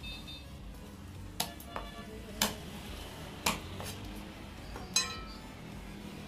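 Sharp knocks of a fish-cutting knife and heavy katla fish against a thick wooden chopping block, about five in all, roughly a second apart. The last one has a brief metallic ring from the blade.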